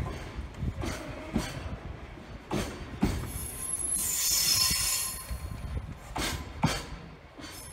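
Freight container train running past, its wagon wheels clacking in pairs over rail joints over a steady rumble. A high-pitched wheel squeal rises for about two seconds in the middle. The sound eases after the last wagon passes near the end.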